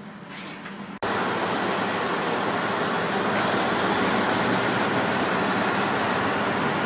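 Diesel railcars running at a station platform: a steady, loud mechanical noise that starts abruptly about a second in, after a quieter first second.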